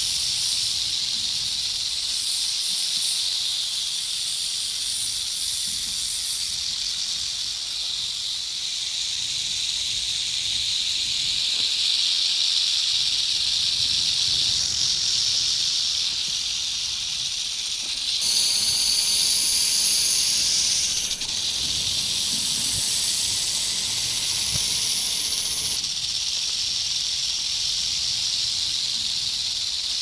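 Snake hissing, several hisses layered into a continuous hiss. It gets louder and sharper about 18 seconds in and drops back about 3 seconds later.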